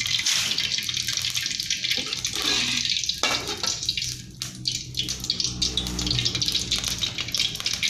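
Hot oil sizzling and crackling in a frying pan on the stove, a steady hiss with many small pops.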